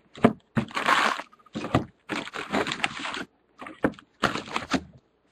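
Cardboard trading-card hobby box being handled and its flap opened: a series of scraping, rustling strokes.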